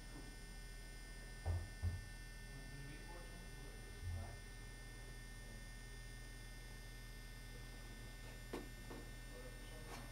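Steady electrical hum with faint hiss, broken by two short low thumps about a second and a half in, another low thump around four seconds, and a faint click near the end.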